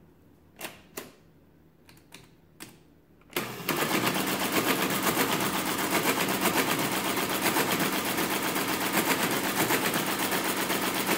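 A few separate clicks of keys and levers being set on a Friden ACG mechanical calculator. About three and a half seconds in, the calculator starts running a division, and its gears and carriage keep up a rapid, even mechanical clatter.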